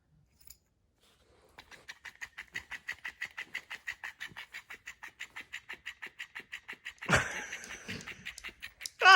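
Electric flopping fish cat toy starts flapping about a second and a half in, beating quickly and evenly at about six flaps a second. A loud thump comes about seven seconds in, and a short, loud vocal sound near the end.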